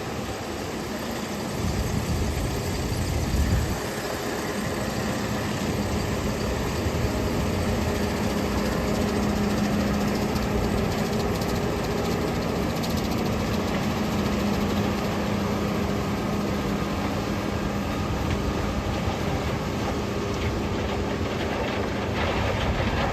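Large farm machinery engine running steadily under load, a constant hum over broad mechanical noise, with heavier low rumbling in the first few seconds.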